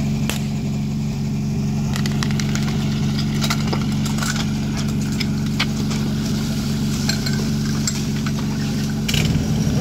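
Portable fire pump's engine running steadily at idle while metal hose couplings are clanked and snapped onto it, many sharp knocks over several seconds. Near the end the engine note changes as the throttle is opened.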